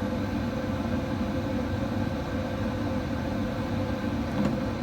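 Steady machine hum with a constant mid-pitched tone, even in level throughout.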